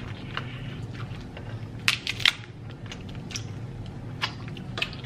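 Seafood shells being cracked and snapped apart by hand: scattered sharp cracks and clicks, the two loudest close together about two seconds in.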